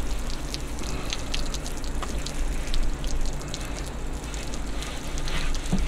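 Water from a garden hose spraying and splashing onto a metal barber's chair pedestal and the workbench beneath it, a steady patter with scattered drips.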